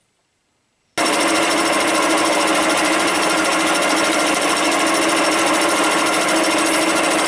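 Milling machine cutting steel: the milling cutter facing a steel bar to square it up, a steady loud cutting noise with a fast, even rattle. It starts abruptly about a second in, after near silence.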